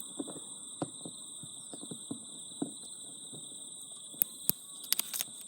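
Steady high-pitched trill of crickets, with scattered light taps and clicks.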